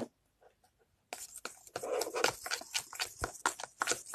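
Pink slime being squeezed and worked by hand in a plastic bowl: a dense run of wet squelches and sharp little pops and crackles that starts about a second in, after a moment of near silence.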